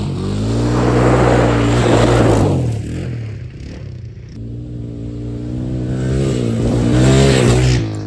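Honda ATC 250SX three-wheeler's single-cylinder four-stroke engine revving hard under acceleration on dirt. It is loud at first, drops away, then builds to a second peak and cuts off suddenly near the end.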